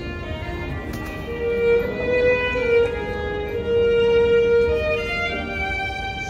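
Background music: an instrumental passage of a song, carried by long held melody notes.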